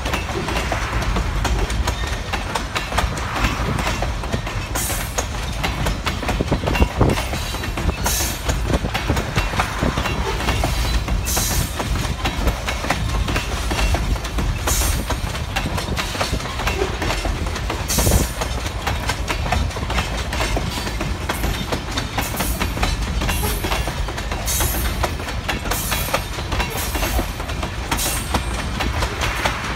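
Freight train's hopper cars rolling steadily past: a constant low rumble of steel wheels on rail, with sharp clacks every few seconds as wheels cross the rail joints.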